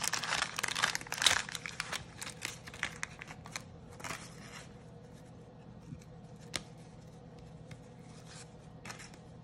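Wax-paper wrapper of a 1987 Topps baseball card pack crackling and tearing as it is peeled open. The crinkling is dense for the first two seconds, then thins out to scattered light clicks, with one sharper click about six and a half seconds in.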